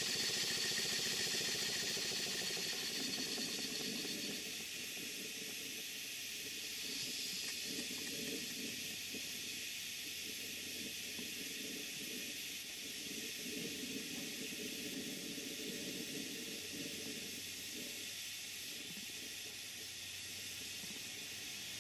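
Steady hiss of steam from a Stuart Models major beam model steam engine running in steam, a little louder for the first few seconds. The engine's exhaust beat is too quiet and even to make out.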